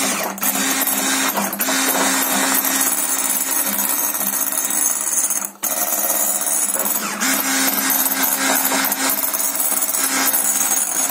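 Electric hand mixer running steadily, its beaters whipping egg-white meringue for the final mix that blends in the cornstarch and green food colouring. The motor cuts out for a moment just over halfway, then runs on.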